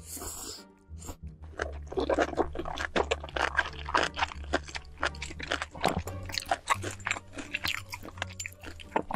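Close-miked chewing of a big mouthful of stir-fried noodles: rapid wet smacks and sharp crunching clicks, over background music with a steady bass line.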